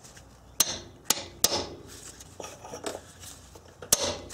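Hammer blows on a steel cold chisel, driven in to force a stubborn front axle out of the transmission: sharp metallic clanks, three in quick succession early on, then two more near the end, with lighter scraping of the chisel in between.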